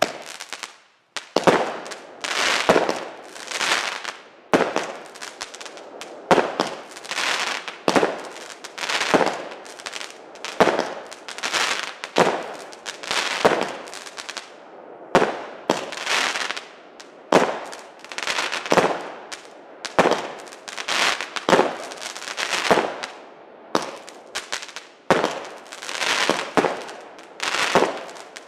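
Vodpalovač consumer firework cake firing its tubes in succession: sharp cracks roughly one to one and a half a second, each with a short crackling tail, after a brief fizz of the lit fuse. There is a short gap near the middle.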